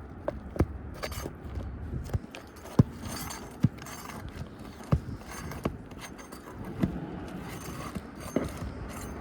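Roofing nails being worked loose from under an asphalt shingle with a metal tool: irregular sharp clinks and knocks, about ten of them, over scraping on the shingles.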